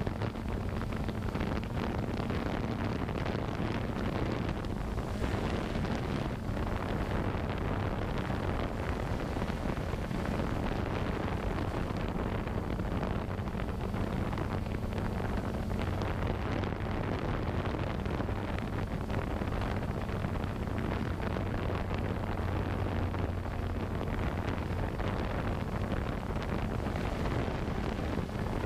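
A drone's propellers and motors whir steadily in flight, heard from the camera mounted on it, with a constant low hum under a rushing hiss of prop wash and wind on the microphone.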